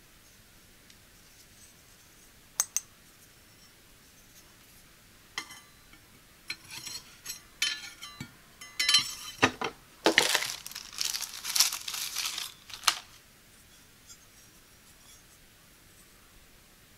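Stainless-steel kitchen knives clinking against each other and the plastic knife block as they are handled, with plastic wrap crinkling. Two light clicks come first, then several seconds of clinks and crinkling, densest near the middle, and a last click.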